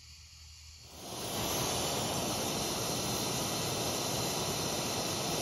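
Repaired Heinz Geniol pressure stove burner running on a pumped tank: nearly quiet at first, then from about a second in a steady hiss of burning vapour that holds evenly. The burner is working again with no leaks after its cracks were brazed.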